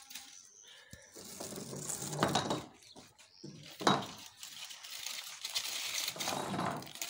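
Aluminium foil crinkling in several bursts as it is peeled open by hand, with a sharp crackle about four seconds in.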